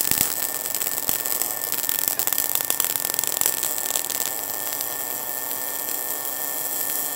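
MIG welding arc burning on 2 mm flat steel bar: a continuous crackling hiss that evens out after about four seconds as the voltage is brought up to the right level. This smooth, 'sweet' arc sound is the sign that the voltage now matches the wire speed.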